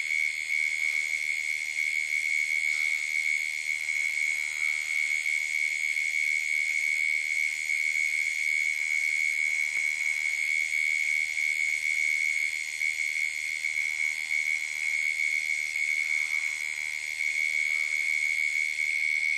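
Night chorus of calling animals at a waterhole: a steady, high-pitched unbroken drone, with a regular pulsing call in a higher register on top of it.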